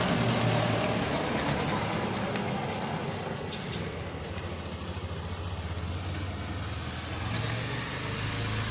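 Low, steady engine rumble of passing road traffic, easing off over the first few seconds and swelling again near the end.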